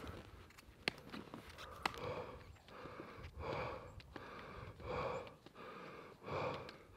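Heavy breathing of a person climbing a snowy slope, with a breath about every second and a half from about two seconds in. A couple of sharp clicks come before it.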